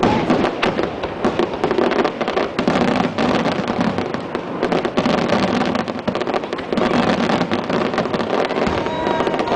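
Fireworks display: a dense, continuous barrage of bursts and crackling, many reports in rapid succession with no pause.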